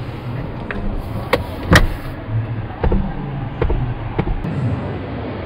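Clicks and clunks from a Mitsubishi Pajero Sport's second-row seat release latch and folding mechanism as the seat is tipped forward. There are about six knocks, and the loudest clunk comes a little under two seconds in.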